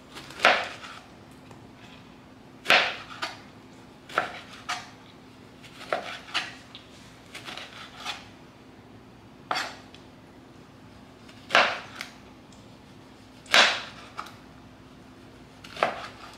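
Kitchen knife chopping on a cutting board: separate sharp knocks, one every second or two at an uneven pace, sometimes two in quick succession. The knife has not been freshly sharpened.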